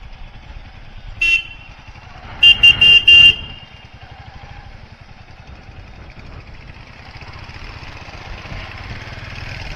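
A vehicle horn sounds one short honk, then about a second later four quick honks in a row. A low engine rumble runs underneath and grows slightly louder near the end.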